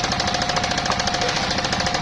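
Portable circular sawmill running: its engine beats rapidly and evenly under a steady high whine from the spinning saw blade.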